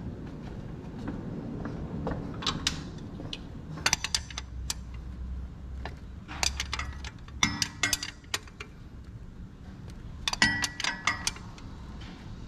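Small metal objects clinking and clattering in several short bursts of sharp clicks: hand tools or bolts being handled.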